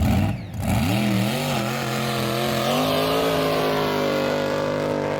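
Jet boat engine revving up, its pitch rising and wavering for the first second or so, then holding a steady high run.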